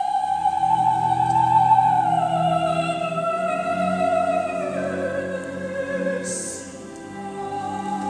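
Operatic soprano holding a long high sung note over sustained orchestral strings; the line eases downward about halfway and settles on a lower note.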